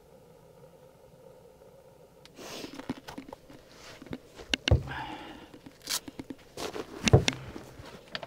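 A faint steady hum, then from about two seconds in rustling and handling noise with scattered knocks and two heavy thumps, as a snow-caked boot is handled inside a truck bed under a soft topper.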